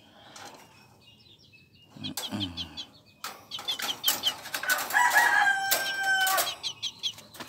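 A bantam rooster crowing once, about five seconds in: one long call held for nearly two seconds. A run of short, high chirps comes just before it.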